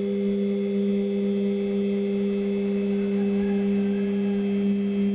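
Stepper motor of a CNC mini milling machine driving the X-axis table at a steady jog speed: a steady whine at one pitch with overtones.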